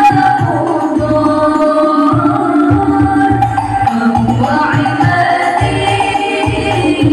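Loud music with singing and a heavy, pulsing bass beat played through a stacked 'miniature' sound-system speaker tower driven by an assembled Crest power amplifier, during a test of the system.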